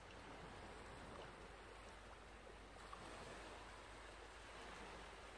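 Faint rustling of denim and cotton fabric as it is handled and folded, over a low steady hiss.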